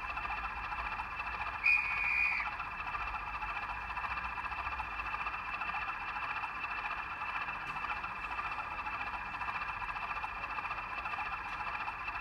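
Sound-fitted Bachmann Class 20 model locomotive's decoder playing a recorded Class 20 English Electric diesel engine idling steadily through its small factory-fitted speaker, which gives a thin sound. A short high tone sounds about two seconds in.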